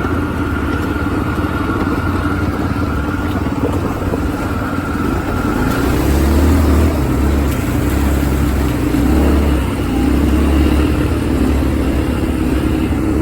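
ATV engine running steadily under way, with a low rumble that grows louder about halfway through.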